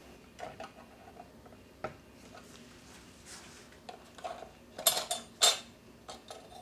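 Small sharp clicks and taps of a foil reflective shield being worked off a map lamp assembly by hand, with a cluster of louder clicks about five seconds in.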